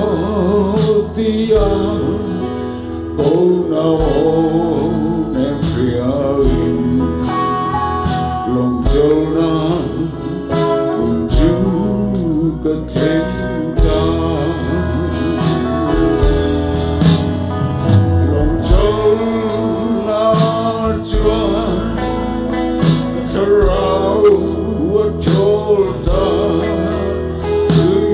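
A man singing a gospel song into a microphone, backed by a live band with a steady beat.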